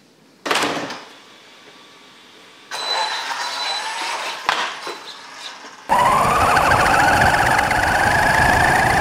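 HobbyKing Desert Fox 1:10 electric RC truck driving: its motor whine and tyre noise come in about three seconds in and get much louder about six seconds in, the whine rising steadily in pitch as it speeds up. A short knock or rustle comes about half a second in.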